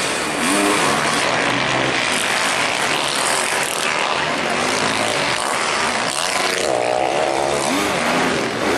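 Motocross bike engines revving hard, their pitch rising and falling through the gears over a steady din of several engines.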